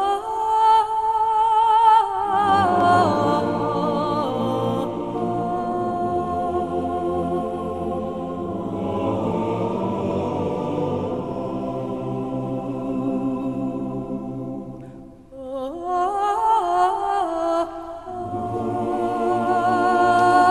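Several voices singing together in harmony with strong vibrato. A high voice leads at first and lower voices join about two seconds in. The singing thins out briefly about fifteen seconds in, then the high voice and the lower parts come back in.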